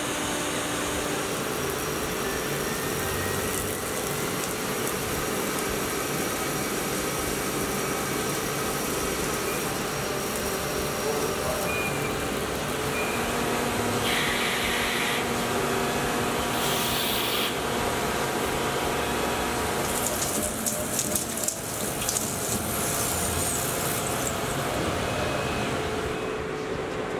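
Tormach Slant-Pro CNC lathe running: the spindle turning and flood coolant spraying while the tool cuts a metal wheel. The noise is steady, with a few short brighter patches and clicks partway through.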